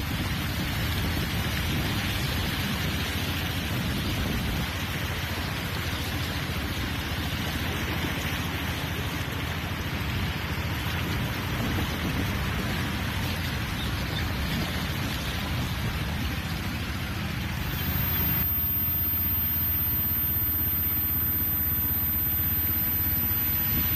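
Rain and water rushing over a flooded road, with vehicle engines running. About eighteen seconds in the sound changes abruptly to a lower, slightly louder wash of traffic driving through the floodwater.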